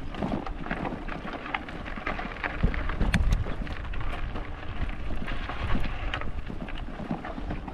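Wind buffeting the microphone of a rider on a bicycle on a dirt track, in uneven low gusts, with many scattered crackles and clicks mixed in.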